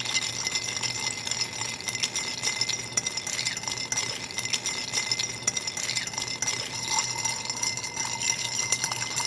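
Bar spoon stirring ice in a cut-crystal mixing glass: a steady run of rapid clinks and rattles of ice against the glass, stirring the martini to chill and dilute it.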